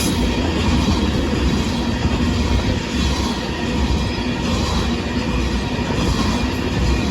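Union Pacific gravel and hopper freight cars rolling past at close range, a steady loud rumble of steel wheels on the rails.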